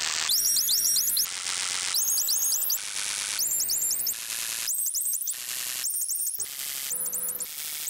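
Experimental electronic noise soundtrack: hiss and static switch back and forth about once a second with bursts of fast, glitchy rising chirps high in pitch.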